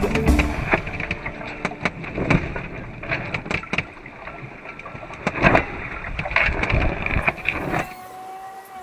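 Wind on the microphone and water noise aboard a small sailboat under way, with many scattered knocks from the boat. A steady tone begins near the end.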